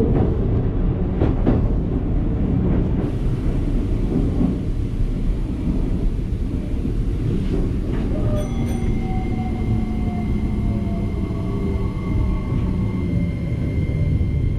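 Train running on rails with a loud, steady rumble. About eight seconds in, a whine joins, with a few steady tones and one that slowly falls in pitch.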